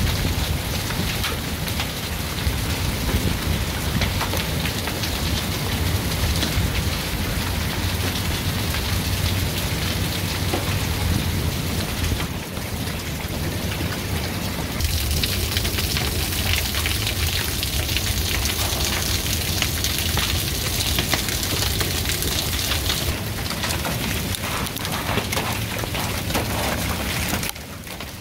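Hail and rain pelting down in a dense, steady patter of many small impacts, with a low rumble underneath. The high hiss grows brighter about halfway through.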